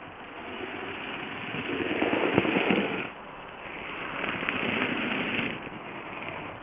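Minitrains Brigadelok 009 narrow-gauge model locomotive running past on the track, a rattle of its motor and wheels on the rails. It grows loudest about two to three seconds in as it passes close, dips, then swells again a second or so later.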